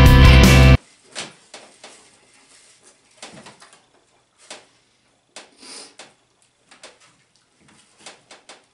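Rock music cuts off abruptly under a second in. After that come faint, irregular wet clicks and smacks of two people biting and chewing hamburgers.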